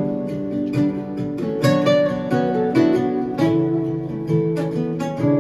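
Acoustic guitar played solo, live: plucked notes and chords ringing out, a new note or chord struck every half second or so.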